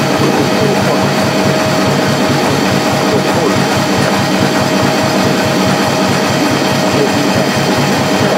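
Antique turn-of-the-century DC generator running steadily under its drive at about 570 RPM. It gives a rapid, even low pulsing with a thin steady whine above it.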